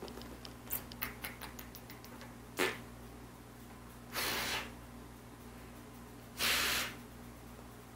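Kisses pressed on a baby's cheek: a few small lip smacks, then three short, hissy smooches about two seconds apart, the last the loudest.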